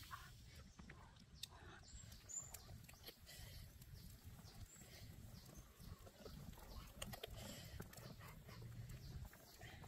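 Faint outdoor ambience: a low steady rumble with a few faint, high bird chirps.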